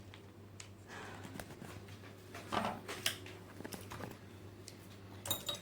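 Faint scattered clicks and soft rustles of painting things being handled, with a steady low hum underneath.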